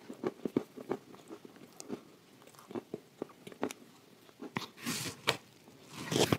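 Close-miked chewing of a crumbly mouthful of edible clay with chocolate paste: a run of short crunches and clicks, thickest in the first two seconds. A louder rushing noise comes about five seconds in and again just before the end.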